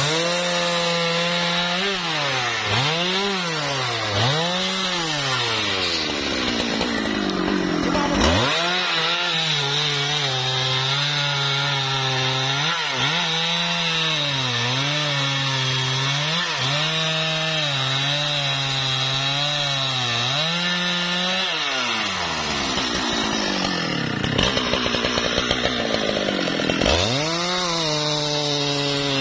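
Husqvarna 395 XP two-stroke chainsaw at full throttle cutting into a tree, its engine note sagging and recovering repeatedly as the chain bites into the wood. Near the end the revs fall away briefly and then climb back up.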